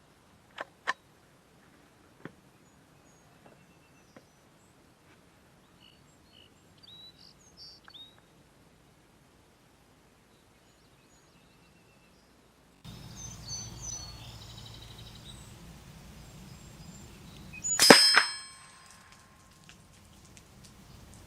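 A single .22 LR shot from a Mossberg 715T rifle about three-quarters of the way in, followed by the clear ringing of a steel target being hit. A few faint clicks and bird chirps come before it.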